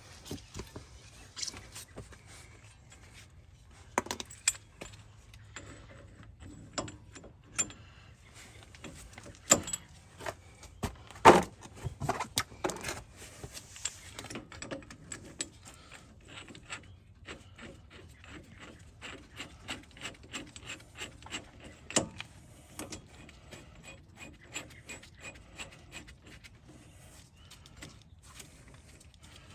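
Irregular metallic clinks, taps and light scrapes of tools and brake parts being handled during a rear brake pad change. The knocks are busiest and loudest around ten to thirteen seconds in, with another sharp one about twenty-two seconds in.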